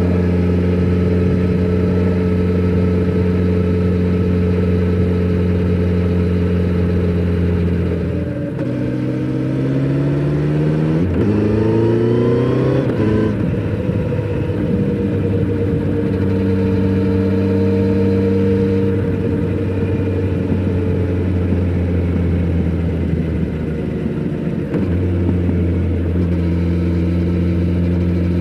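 Kawasaki Z900RS inline-four engine through its stock exhaust while riding. It holds a steady note at cruise. About a third of the way in it drops, then accelerates through two gears with the pitch rising, before settling back to a steady cruise, with another shift near the end.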